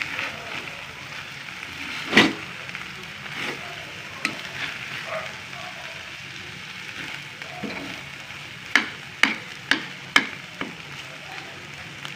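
Corned beef sizzling as it fries in butter in a pan, while a cooking utensil stirs and turns it, knocking against the pan: one loud knock about two seconds in and a quick run of four knocks near the end.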